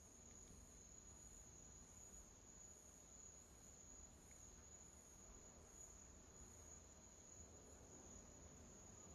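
Near silence: faint room tone with a steady high-pitched whine and a soft pulsing above it, a little under two pulses a second.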